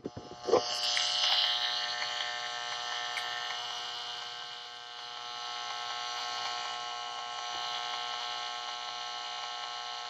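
AlphaLab Line EMI Meter's speaker giving out a steady electric buzz, its audible rendering of noise on the household mains wiring, after a click about half a second in. The meter reads about 1934 mV, which the owner puts down to dimmers all over the house making the electricity dirty.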